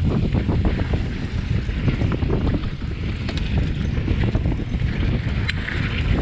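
Wind buffeting the microphone of a camera on a moving mountain bike, over the rumble of knobby tyres on a dirt trail and frequent rattles and clicks from the bike jolting over bumps.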